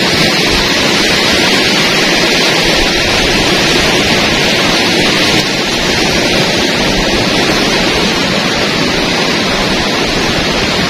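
Heavy sea surf on the shore: a steady, loud rushing hiss with no pauses.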